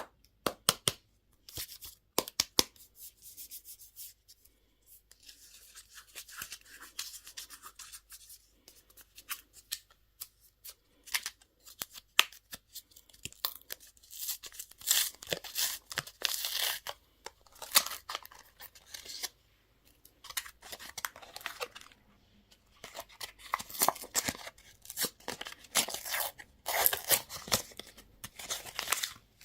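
Candy and toy packaging being torn open and crinkled by hand: irregular crackling and tearing with sharp clicks, in bursts separated by short pauses.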